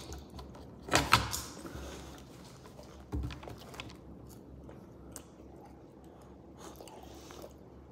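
Biting into and chewing a crisp fried alcapurria held in a paper bag. A loud crunchy bite comes about a second in and a smaller one near three seconds, then only faint chewing ticks.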